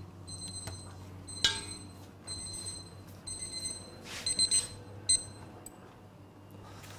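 Electronic timer beeping: short groups of high, even beeps repeating over and over, fading out about six seconds in. A single sharp knock comes about a second and a half in.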